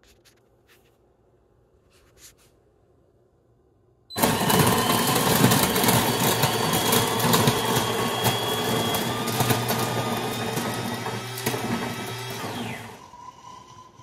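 A few faint clicks, then the De'Longhi Magnifica Evo's built-in conical burr grinder starts about four seconds in and grinds coffee beans loudly for about nine seconds. The grinding is a crackling over a steady motor hum, and the motor winds down with a falling pitch as the grind ends, the first stage of a brew.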